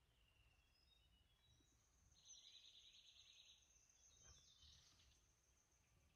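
Faint forest ambience: small birds chirping and trilling at a high pitch, loudest a little past two seconds in, with a thin steady high whine running through the middle.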